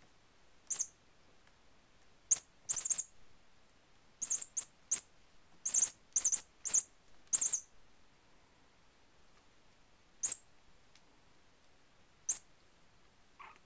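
Small cat toy chirping or squeaking in short, very high-pitched bursts each time the kitten bats and pounces on it. The bursts come about a dozen times, bunched close together at first and then more sparsely near the end.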